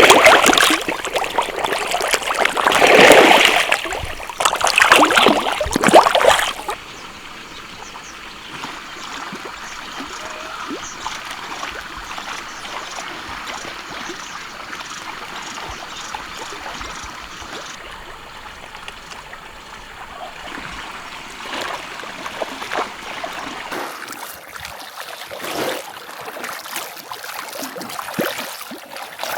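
Water splashing loudly in several irregular bursts for about the first six and a half seconds, then a quieter, steadier trickle of running water with small splashes.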